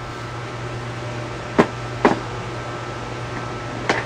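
A steady low mechanical hum, with three short sharp clicks: two close together around the middle and one near the end.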